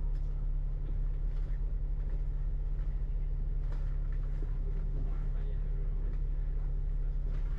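Steady low rumble of a moving vehicle, heard from inside, with a few faint clicks and rattles.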